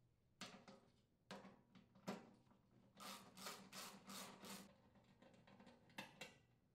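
Faint tool-and-metal handling noise from unthreading the mounting bolts of a furnace blower motor on its sheet-metal housing. A few light knocks come first, then around the middle a run of about six rasping strokes, roughly four a second.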